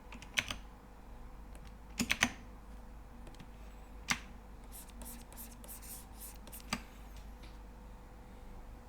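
Computer keys being pressed sporadically: a few single clicks, a quick cluster of three about two seconds in, and lighter ticks later. A faint steady electrical hum lies underneath.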